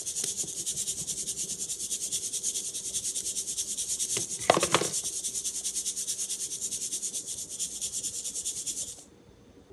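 Blended rice flour being shaken and rubbed through a fine mesh sieve: a quick, even, scratchy rasp of many strokes a second, with a brief louder clatter about halfway through, stopping shortly before the end.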